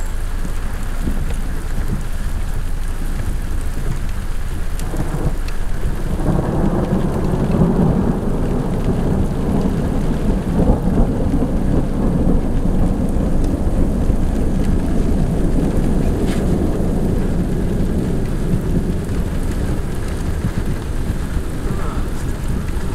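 Thunderstorm: steady rain with rumbling thunder. The rumble gets louder about six seconds in and keeps going.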